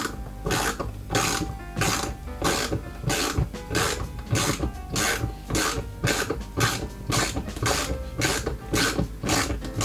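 Ratchet wrench clicking through steady back-and-forth strokes, about two a second, as it turns a bolt through a universal pin socket, over background music.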